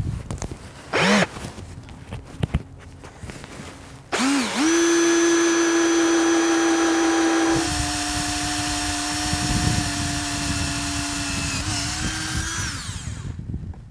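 Cordless drill boring a hole through steel: a short trigger blip about a second in, then from about four seconds a steady motor whine. The whine steps down slightly in pitch partway through as the bit cuts, and winds down near the end.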